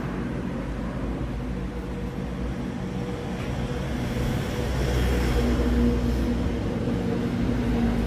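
Steady low rumble with a continuous hum, slightly louder in the middle.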